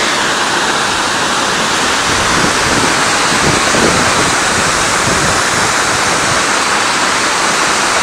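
Steady rush of a wide waterfall, many strands of water pouring over a cliff ledge, loud and unbroken.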